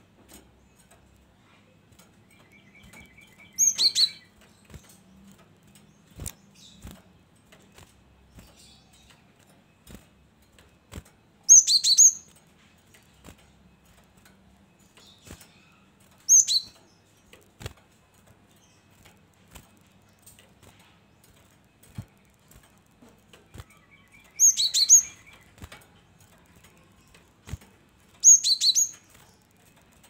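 A cinereous tit (gelatik batu) calling in short bursts of high, sharp chirps, five times, twice led by a fast trill of rapidly repeated notes. Scattered light clicks and flutters come from the bird hopping and flapping about its cage.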